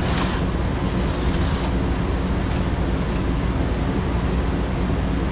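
HO-scale slot cars running on the plastic slot track, their small electric motors giving a steady hum with a hiss over it and a few brief hissing surges in the first two seconds.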